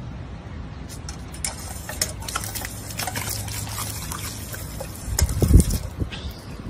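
Water spraying and splashing from a step-on, paw-pedal dog water fountain as a dog drinks from the spout, with many small irregular clicks. A few loud, dull thumps come near the end.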